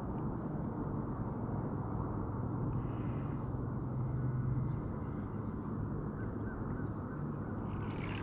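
Steady low outdoor background noise on open water, with faint short bird calls above it.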